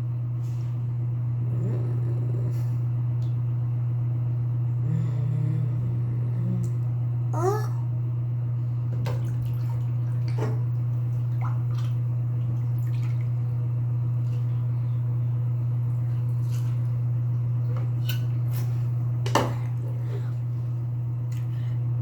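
A steady low hum with scattered faint clicks, a brief rising chirp about seven and a half seconds in, and a sharper click near the end.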